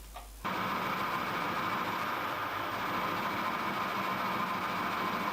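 Small metal lathe running steadily, its chuck spinning a drive-crank workpiece against the turning tool; the sound starts abruptly about half a second in.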